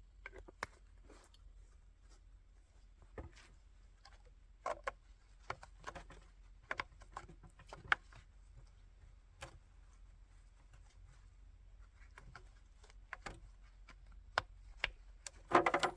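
Scattered small clicks and light knocks of something being handled, irregular and a few seconds apart, with a quick flurry of clattering just before the end.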